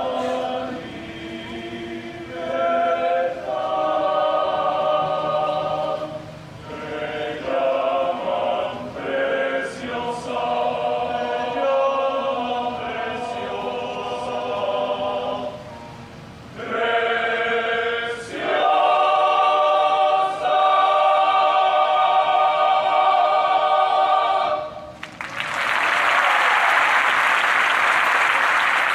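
Men's choir singing in harmony, closing on a long held chord of about six seconds, followed by the audience applauding for the last few seconds.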